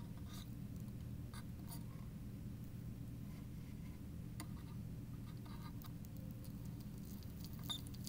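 Faint scratches and small clicks of hand soldering work on wires, over a steady low electrical hum.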